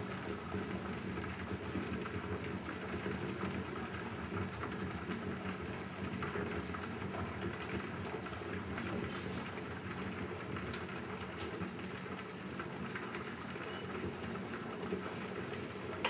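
Bodum Santos electric vacuum coffee maker bubbling steadily in its brewing stage: steam from the heated lower carafe churns up through the coffee grounds in the upper glass bowl, with a continuous crackly patter and a few faint clicks.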